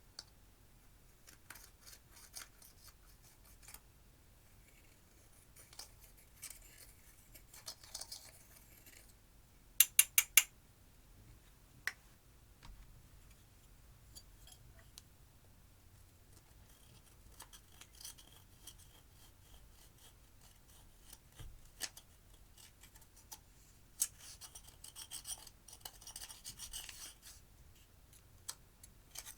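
Dry scraping and rasping of pressed eyeshadow being broken up with a hard tool, with scattered small clicks. A quick run of four loud, sharp clicks about ten seconds in is the loudest sound.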